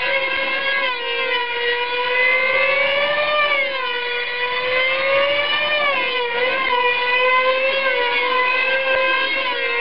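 Small high-revving two-stroke engines of F2D control-line combat model aircraft whining at full throttle. The steady high-pitched note wavers up and down as the planes circle and manoeuvre on their lines.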